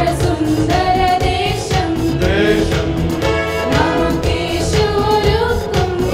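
Live worship song: voices singing a hymn over an electronic arranger keyboard and an acoustic guitar.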